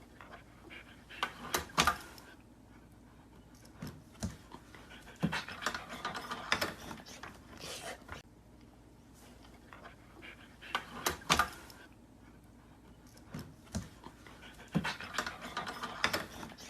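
An animal's short, noisy breaths or sniffs, coming in irregular bursts with quiet gaps between them.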